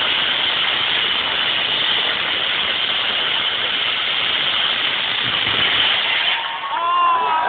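Steady loud rushing din of a crowd, with a voice whooping briefly near the end.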